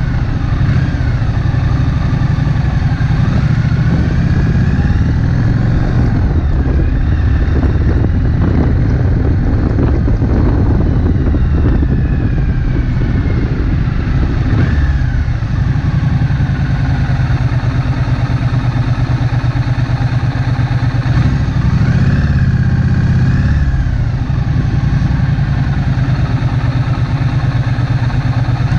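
Triumph Bonneville Street Twin's 900 cc parallel-twin engine running under way at town speed, its pitch rising and falling several times with the throttle.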